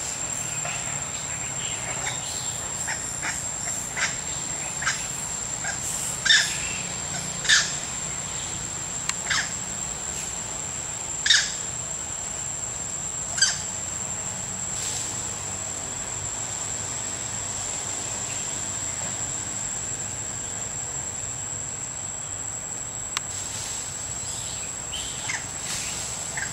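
A steady high-pitched insect drone, with a scattering of short, sharp chirping calls through the first half and a few fainter ones near the end.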